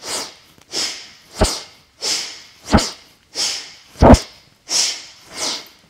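A woman's strong, rhythmic breathing during an arm-swinging yoga exercise: short forceful rushes of breath, about one and a half a second, with every other one sharper and harder.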